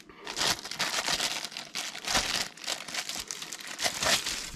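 Plastic packaging wrap crinkling and rustling in irregular bursts as it is handled and pulled off a vacuum cleaner's attachment hose.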